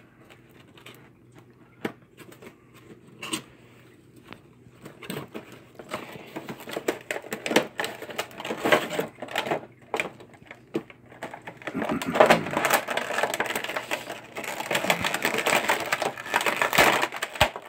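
A cardboard toy box being opened and unpacked. A few scattered taps and clicks come first, then crinkling and rustling of plastic and packaging start about six seconds in as the contents are pulled out, heaviest near the end.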